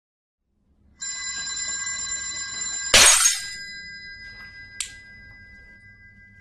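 A steady high ringing tone of several pitches, then, about three seconds in, a glass fish bowl shatters with a loud crash. The ringing carries on more faintly, with one small clink of glass later.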